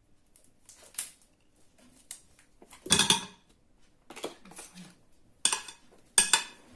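A metal spoon scraping mascarpone out of a plastic tub and knocking against the tub and a ceramic mixing bowl: scattered clinks and knocks, the loudest about three seconds in and two more near the end.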